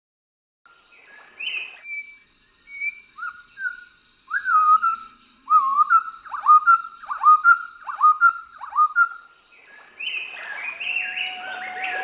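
A bird calling over and over in a run of sharp notes, each sliding down in pitch, louder and more regular toward the middle, over a steady high-pitched drone. Music with a flute-like melody fades in near the end.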